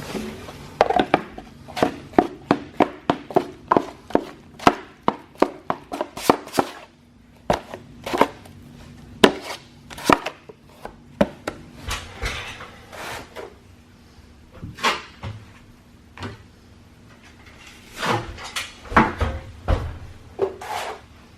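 A quick run of sharp taps and knocks, about two to three a second for the first several seconds, then more scattered knocks with pauses between them.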